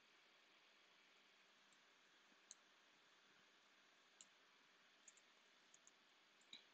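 Faint, scattered computer mouse clicks over near-silent room tone, a handful of them, most in the second half.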